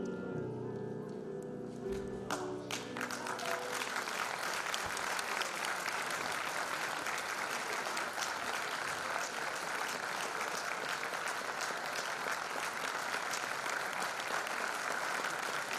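The last notes of a song for baritone and piano die away. About two seconds in, an audience breaks into applause, which runs on steadily.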